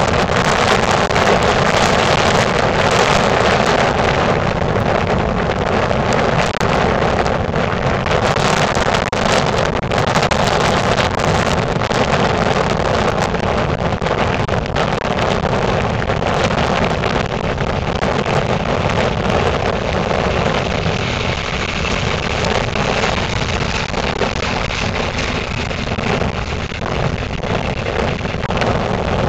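Electric-locomotive-hauled regional train of double-deck coaches pulling slowly out of a station, a steady rolling noise, with wind buffeting the microphone throughout.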